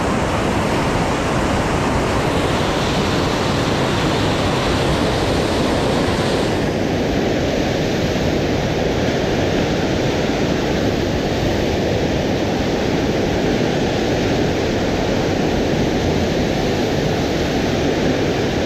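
Steady loud rushing of a swollen, flood-high river, its muddy water churning in rapids. The tone of the rushing changes abruptly about six seconds in, then holds steady.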